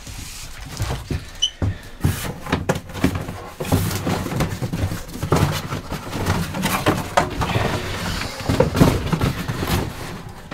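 Irregular knocks, clicks and rustling from someone moving about and handling things, with the camera held close and jostled.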